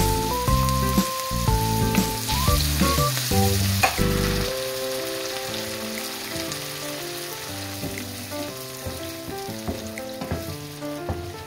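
Shrimp, onion and garlic sizzling in a hot nonstick frying pan in tomato sauce and heavy cream, stirred with a wooden spatula, with a few sharp clicks. Background music plays over it.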